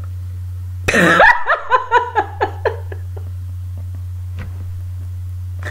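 A woman bursts into laughter about a second in: a sudden, explosive first burst, then a run of about six short "ha" pulses that fade over a second and a half. A steady low hum runs underneath.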